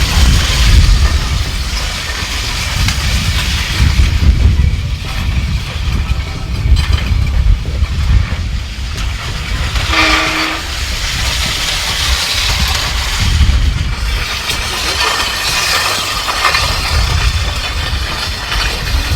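Weighted push sleds (prowlers) grinding and rumbling along the ground as they are driven forward in a sled-push race. The scraping rumble runs on continuously and swells and fades.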